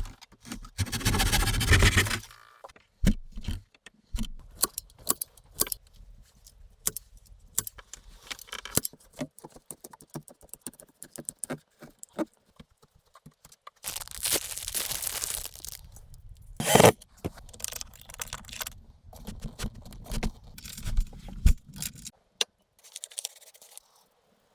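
Irregular clicks, knocks and scraping of things being handled, with two longer stretches of rustling or scraping, one about a second in and one about two-thirds of the way through, and a single loud knock shortly after the second.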